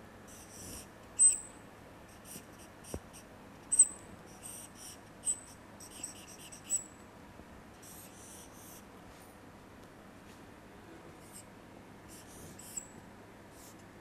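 Marker drawing on a whiteboard: clusters of quick scratchy strokes with short high squeaks, a lull about two-thirds of the way through, then a few more strokes near the end.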